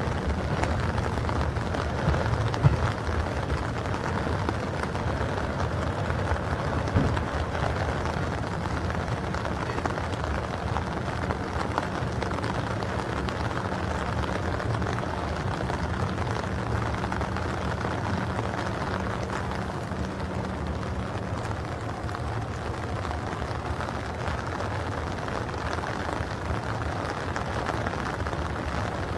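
Steady rain with a freight train's hopper wagons rolling away along the track. A few wheel knocks sound over the rails in the first seconds and around seven seconds in, and the rolling fades as the train recedes.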